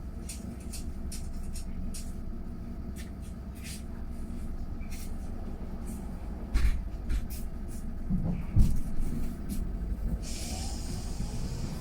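Mercedes-Benz eCitaro G full-electric articulated bus on the move: a steady low rumble with many scattered rattles and clicks. There are heavier knocks about six and a half and eight and a half seconds in, and a short hiss near the end.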